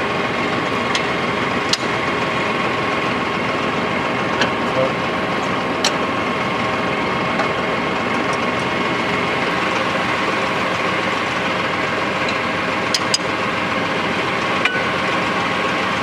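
Mahindra tractor's diesel engine idling steadily, with a few sharp metallic clicks as the backhoe's lock pins and levers are worked free.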